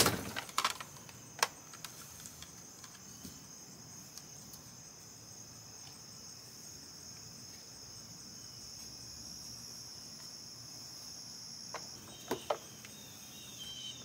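Steady high-pitched chorus of insects, with a few sharp clicks and knocks of plastic vacuum dustbins and parts being set down on a towel near the start and again near the end.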